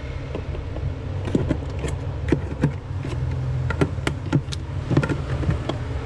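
A knife blade prying at a refrigerator's plastic evaporator cover, with scattered sharp clicks and scrapes as its snap hooks are worked loose one by one. A steady low hum runs underneath.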